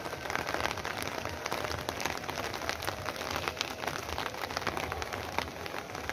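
Steady rainfall, with many sharp separate drop ticks close to the microphone over an even hiss of rain.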